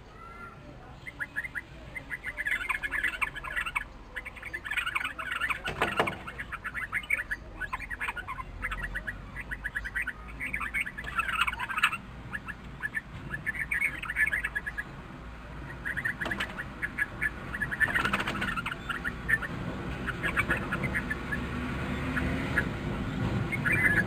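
Red-vented bulbuls giving rapid chattering calls in repeated bursts, with a few sharp knocks in between.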